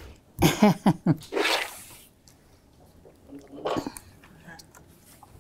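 Short sounds of a woman's voice, then a breathy, cough-like exhale about a second and a half in, and one more brief vocal sound near the end; quiet between them.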